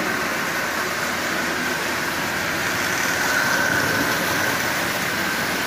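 O gauge tinplate toy train running on three-rail tubular steel track: a steady rolling rumble of metal wheels on the rails with a faint motor whine that grows a little louder midway as the cars pass close by.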